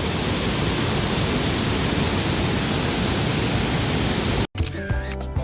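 Steady rushing noise of a waterfall close by. Near the end it cuts off abruptly and background music starts.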